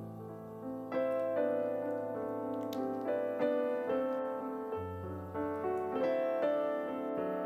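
Background piano music, a gentle melody with notes struck about twice a second over held low notes.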